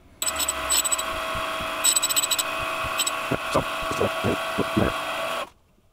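Electric motor of a homemade drill-bit cutter grinder running with a steady hum while its flaring cup wheel grinds the back relief on a twist drill. Short scraping and clicking contacts come and go as the bit touches the wheel. The sound starts and cuts off suddenly.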